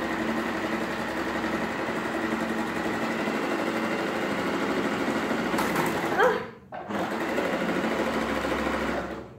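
Janome 3522 electric sewing machine running under foot-pedal control, stitching a straight seam through fabric. It stops briefly about two-thirds of the way through, starts again, and stops near the end.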